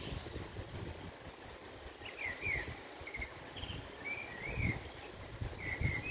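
Small birds chirping in short, quick phrases, several calls from about two seconds in, over a low rumble that swells and fades.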